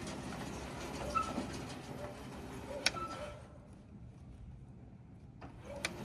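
Low, steady running noise of a remote-control tracked mower's electric drive motors moving the machine, with a few sharp clicks and short chirps. The noise drops away for about two seconds past the middle, then returns.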